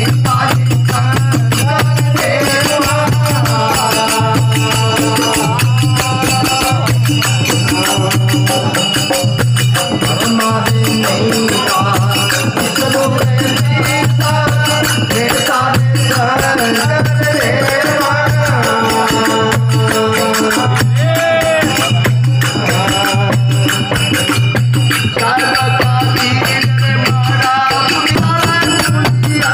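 Live Indian folk devotional music: men singing to a steady, fast jingling rattle of hand percussion, with a low drum beat pulsing underneath.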